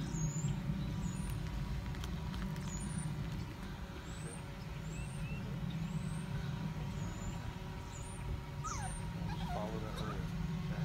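Outdoor ambience: a steady low rumble under short, high rising chirps from small birds every second or so. About nine seconds in, a dog gives a brief whine.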